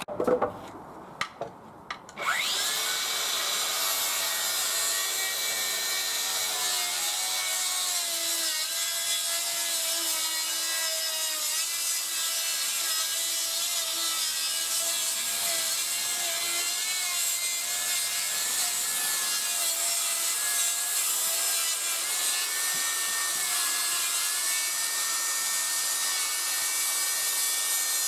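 A few handling clicks, then about two seconds in a DeWalt DCS578 54-volt cordless circular saw starts and rips lengthwise through 2-inch tanalised (pressure-treated) timber, running steadily under load to the end.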